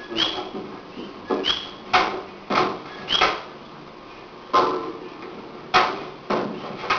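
A run of sharp slaps and thuds, about one a second, from strikes and footwork in Jeet Kune Do partner drills. Several impacts carry a brief high squeak.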